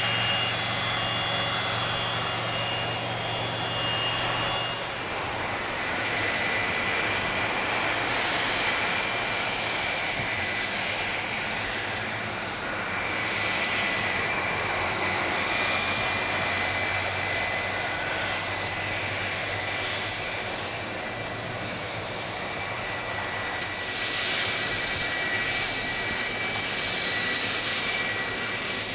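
Jet airliner engines. First a Boeing 757-200's engines run steadily with a whine on the runway. About five seconds in the sound changes abruptly to the steady roar and high whine of a twin-jet airliner flying overhead on approach.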